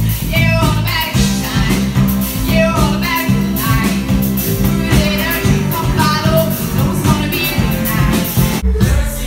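A woman singing live into a microphone over a pop-rock band of drum kit and electric bass, with a brief break in the music near the end.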